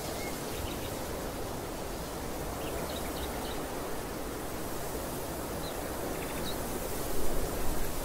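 Steady wind over an open field, with low buffeting on the microphone and a louder swell about seven seconds in. Faint, short bird chirps come a few times.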